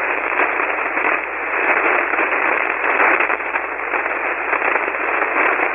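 HF amateur radio receiver on the 40-metre band giving a steady hiss of band noise between transmissions, with no station on the frequency. The hiss is cut off above and below the narrow voice passband of the single-sideband filter.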